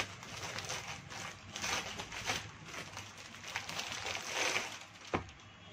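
Clear plastic packaging of a folded suit rustling and crinkling in irregular bursts as it is handled, with one dull knock near the end.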